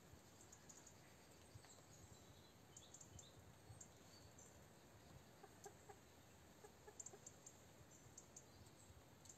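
Chickens clucking faintly, a run of short clucks about halfway through, with faint high clicks here and there.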